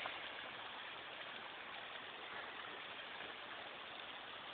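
Steady, faint hiss of background noise with no distinct events.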